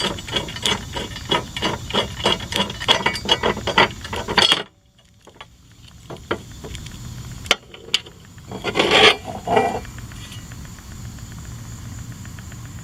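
A ratchet wrench clicking quickly and evenly as the loose blade bolt is backed out of a Craftsman mower's blade adapter, stopping suddenly after about four and a half seconds. A single sharp click follows, then a short metal scrape and clatter as the bent blade comes off.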